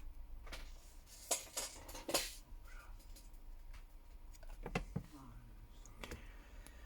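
A handful of light clicks and taps from small smartphone parts and tools being handled, as a camera module is pressed onto a Samsung Galaxy S10+ motherboard. The loudest come about one to two seconds in, with a few more near the end.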